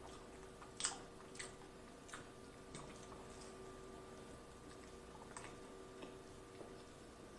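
Faint close-up eating sounds: scattered wet mouth clicks and soft chewing while eating a slice of pizza, the sharpest click about a second in. A faint steady electrical hum runs underneath.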